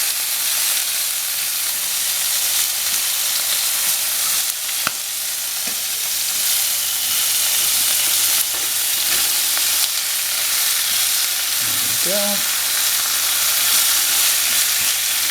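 Halved yabbies, just flipped, sizzling steadily in hot oil in a frying pan. There is a single sharp click a little under five seconds in.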